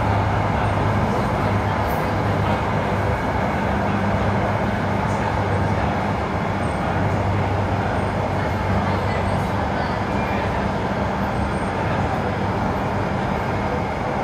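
Kawasaki C151 MRT train running between stations, heard from inside the car: a steady rumble of wheels and running gear, with a low hum that fades in and out.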